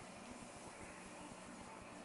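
Faint, steady hiss with a low rumble: room tone and recorder noise, with no distinct sound standing out.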